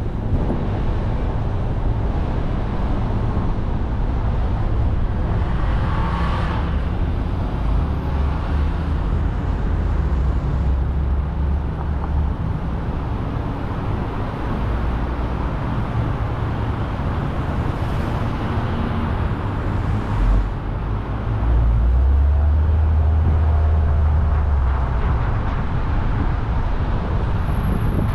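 Car driving through city traffic: steady road and tyre noise with a low rumble that swells louder at times, most of all about three-quarters of the way through.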